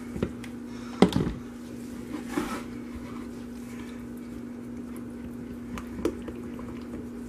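A spatula scooping and stirring thick cold-process soap batter in a plastic cup makes soft squishy scrapes, with a few light knocks of spatula and cups, the loudest about a second in. A steady low hum runs underneath.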